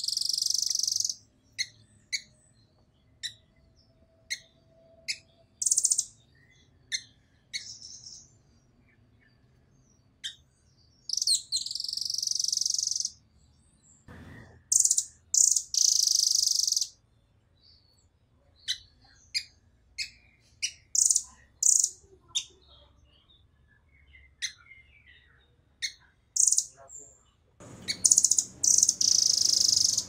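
Blue nuthatch calling: short, sharp high-pitched chips scattered between several loud, rapid trills that each last a second or two.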